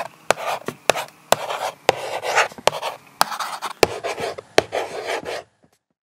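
A marker drawing strokes on a hard surface: a sharp tap as the tip touches down, then a short scratch of the stroke, about eight times. It stops suddenly near the end.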